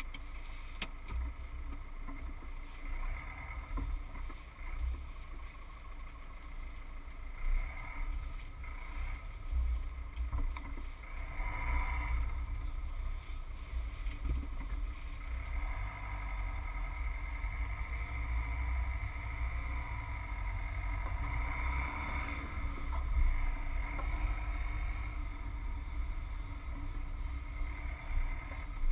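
Low, steady in-cabin rumble of a Subaru Forester's flat-four engine and tyres as the car drives slowly, with faint higher tones that rise and fade a few times.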